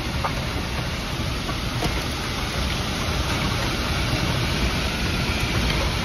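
Heavy wind-driven rain pounding on a vehicle's roof and windshield, heard from inside the cabin, over a steady low rumble of wind buffeting the vehicle as a tornado's circulation passes close by.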